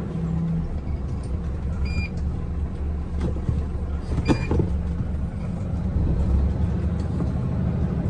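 Heavy diesel dump-truck engine running with a steady low rumble, with two short clicks about two seconds and four seconds in.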